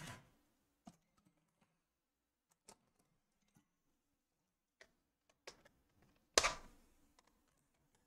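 Scattered light clicks and taps of hard plastic being handled on a laptop's bottom case, with one louder sharp clack late on.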